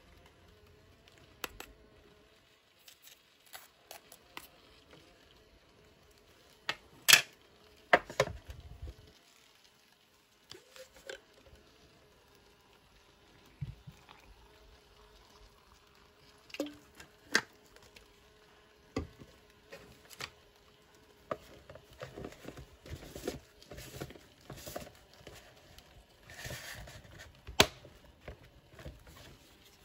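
Table-top handling noises: scattered light clicks and knocks of a plastic spoon, plastic tray and plastic shaker cup, with two louder knocks about seven seconds in. Water is poured into the shaker cup about halfway through, and a run of small clicks and rubbing near the end comes as its lid is screwed on.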